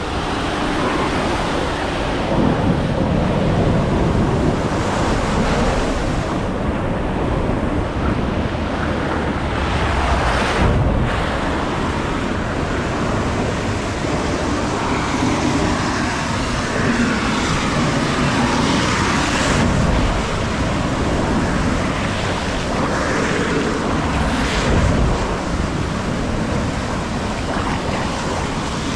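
Water rushing and splashing along a tube water slide, with wind buffeting the microphone; the noise swells briefly a few times.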